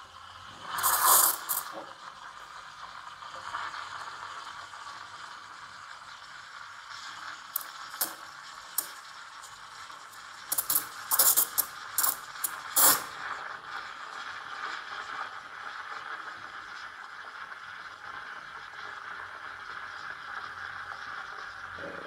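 Gaggia Classic espresso machine's steam wand steaming milk in a jug: a steady hiss, broken by short, loud, crackling spurts about a second in and again several times around ten to thirteen seconds in, the sound of the wand tip drawing air into the milk to froth it.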